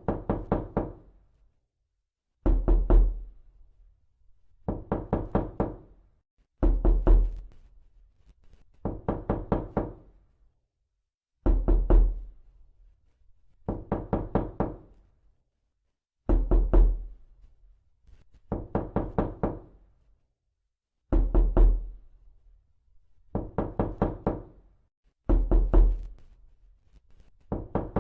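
Repeated knocking: quick runs of about four to six knocks, one run roughly every two seconds, alternating between heavier runs with a deep thud and lighter ones.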